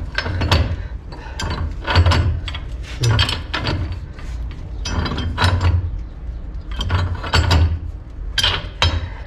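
Steel pipe wrench clicking and scraping on threaded pipe fittings as it is turned, in short irregular metallic strokes about a second apart, with dull knocks from handling.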